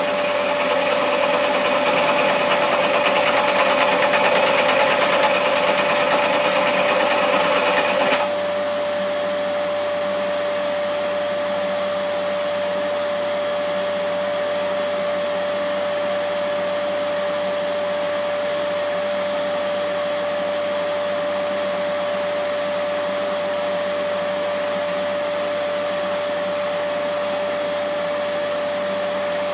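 Scheppach SD1600V scroll saw running and cutting through a metal plate, a steady mechanical whine with a harsh rasping layer over it. About 8 seconds in the rasping drops away abruptly and the saw runs on more quietly and evenly.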